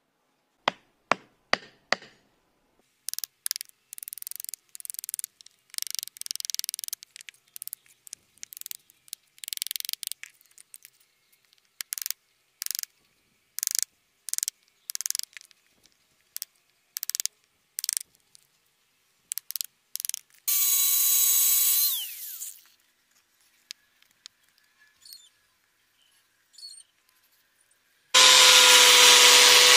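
A few sharp taps, then many short scraping strokes of a hand-held blade shaving wood. Later a power tool whines briefly and winds down, and near the end an electric power tool starts and runs steadily.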